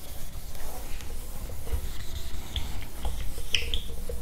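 Handheld eraser wiping a whiteboard in rubbing strokes, with a few short squeaks in the second half.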